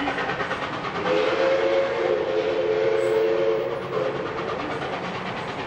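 An approaching train's locomotive sounds one long warning blast of several tones together, lasting about three seconds and starting about a second in, over the steady rumble of the train.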